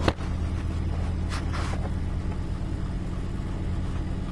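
A steady low electrical hum. A sharp click sounds right at the start, and two soft rustles follow about a second and a half in, as the PC's power-supply wiring is handled.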